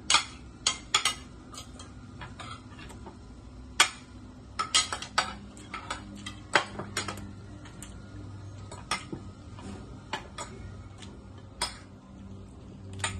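Irregular sharp clinks and clicks of spoons and hands on plates, a bowl and a rice cooker pot as people eat a meal, over a low steady hum.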